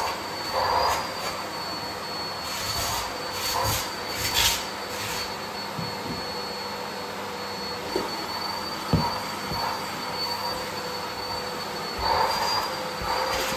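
Vacuum cleaner running steadily with a high whine, its suction hissing louder in short surges as the nozzle is worked over surfaces, with a few sharp knocks of the nozzle about eight and nine seconds in.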